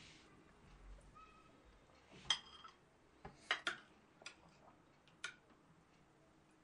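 A handful of short, sharp light clicks and knocks, irregularly spaced about a second apart, over a quiet background.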